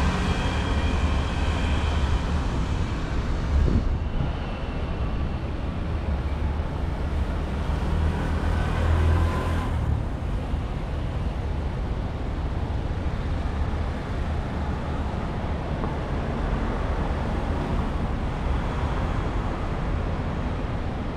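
Road traffic: motor vehicles running past on the street, a steady low engine rumble that swells in the first few seconds and again about nine seconds in, then settles.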